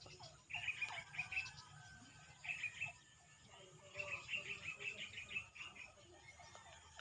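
Birds chirping in quick runs of short, high notes, coming in three bursts: about half a second in, around two and a half seconds, and from about four to five and a half seconds.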